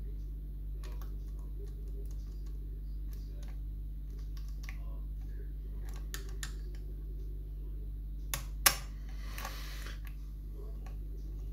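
Faint, scattered small clicks and scrapes of a lever lock pick and tension tool working inside a seven-lever safe lock, with two sharper clicks and a brief scrape about three quarters of the way in, over a steady low hum.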